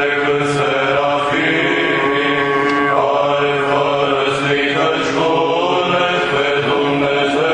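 Orthodox liturgical chant: voices singing a hymn in long, held notes that move slowly from pitch to pitch, without a break.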